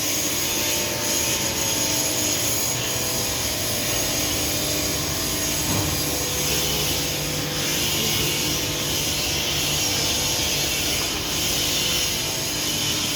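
Gas/CNG-fired steam boiler running: a steady, even noise with a strong hiss and a low hum underneath, holding at one level throughout.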